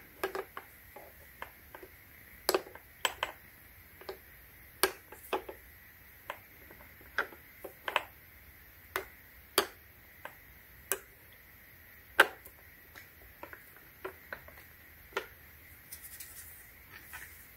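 Scattered light clicks and knocks of a metal chainsaw guide bar and chain being handled and seated onto the plastic head of an electric pole saw, irregular, with one sharper knock about twelve seconds in.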